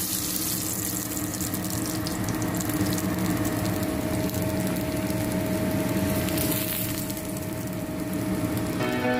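Grouper frying in hot oil: a steady sizzle with fine crackling, over a low steady hum.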